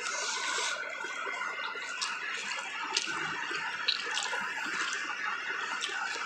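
Close-up wet eating sounds, soft chewing and smacking, with a few light clicks, over a steady background hiss.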